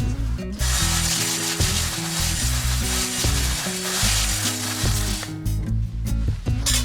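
Background music with a steady run of low notes, over the crackling and hissing of a wood fire burning in a flat fire pit.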